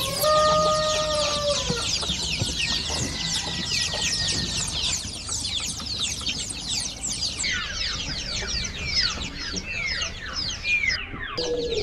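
Chickens clucking, with one drawn-out hen call in the first two seconds that drops in pitch at its end, over a constant chatter of many small birds chirping.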